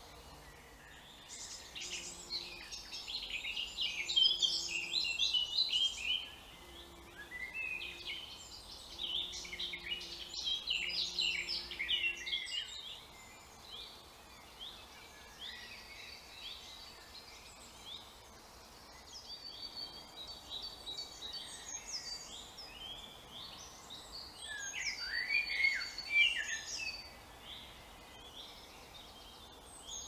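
Woodland birdsong: several songbirds singing quick, sweeping phrases, busiest in the first twelve seconds and again about 25 seconds in. Short low notes repeat under the song through the first twelve seconds.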